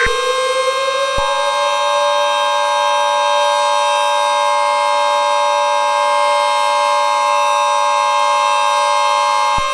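Emergency Alert System two-tone attention signal, starting about a second in and cutting off just before the end. Under it a civil defense siren rises in pitch over the first two seconds and then holds steady, with a steady single higher tone throughout.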